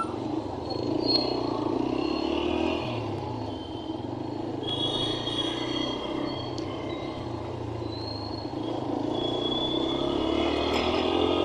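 Motorcycle engine running on the road in traffic, with a steady rumble of engine and road noise and short high-pitched tones from passing traffic now and then. The engine pitch rises near the end as it speeds up.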